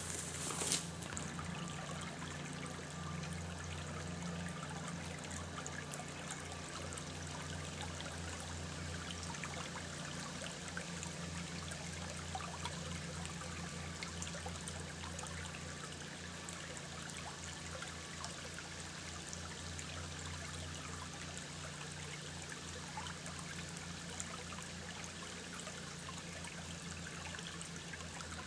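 A small woodland creek trickling steadily, with one short sharp noise less than a second in.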